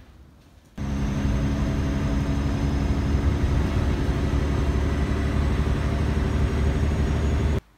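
A vehicle running steadily: a low engine hum with a broad rush of noise over it. It starts abruptly about a second in and cuts off suddenly near the end.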